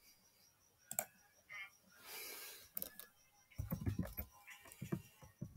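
Typing on a computer keyboard: a few scattered clicks, then a quick run of separate keystrokes in the second half.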